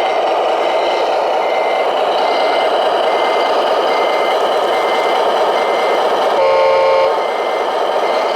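Reversing beeper of a radio-controlled model truck, beeping steadily about once every 0.7 s over the running engine sound. About six and a half seconds in, a horn sounds briefly.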